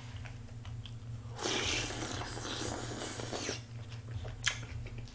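Eating noise from a bowl of icy mulhoe broth: a slurp lasting about two seconds, starting about a second and a half in, then a few faint mouth clicks and one sharp click near the end, over a low steady hum.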